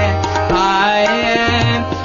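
Hindustani classical singing in raag Nand, a bandish in medium-paced Jhaptaal (ten beats), with tabla accompaniment. The voice holds and bends notes over the tabla strokes, and the deep bass-drum tones drop out for about a second in the middle.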